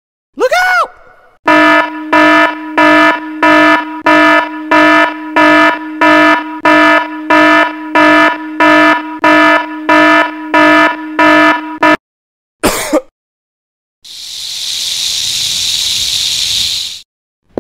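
Harsh electronic alarm buzzer sounding in steady pulses, about two a second, for about ten seconds, preceded by a short rising-then-falling pitch sweep. Near the end comes a separate burst of hiss lasting about three seconds.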